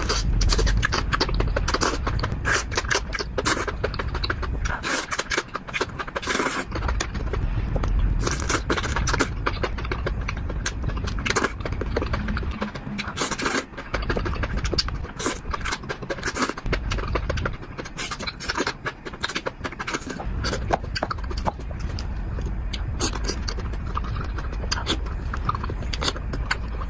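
Close-up eating sounds: irregular chewing clicks and crackles, with utensils scraping on a plate, over a steady low rumble.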